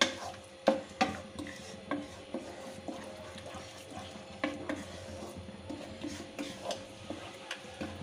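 A spatula scraping and knocking against a kadai as a thick masala paste is stirred and sautéed. The scrapes come irregularly, with a few sharper clacks in the first second.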